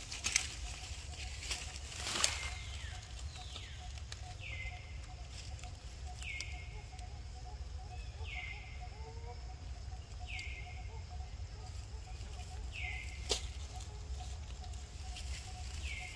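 Short high animal calls, each sliding down in pitch and then levelling off, repeated about every two seconds, over a steady low outdoor rumble. A few sharp clicks, one near the start, one about two seconds in and one near the end.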